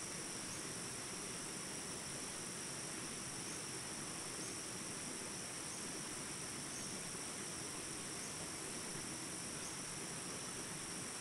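A steady, high-pitched chorus of insects buzzing, with faint chirps repeating about once a second.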